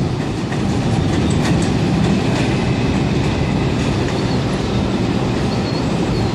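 R142 subway trains running on an elevated steel structure: a steady loud rumble with wheels clattering over the rail joints. Faint short wheel squeals come in near the end.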